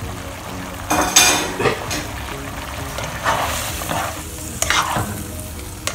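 Spatula stirring egg tofu pieces through thick sauce in a nonstick wok: a few separate scraping strokes against the pan, the loudest about a second in, over the steady sound of the sauce cooking.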